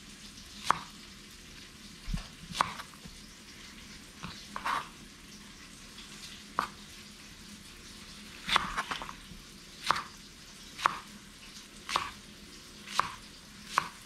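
Chef's knife slicing green onions on a plastic cutting board: about a dozen sharp knocks of the blade against the board, unevenly spaced at roughly one a second.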